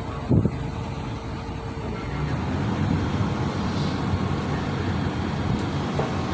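A motor vehicle engine running steadily with a low rumble, and one short thump about half a second in.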